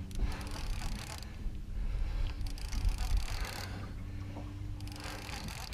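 A heavy fishing reel being cranked in spurts, its gears and handle whirring and clicking, while reeling a hooked alligator up from deep water. A low rumble runs underneath.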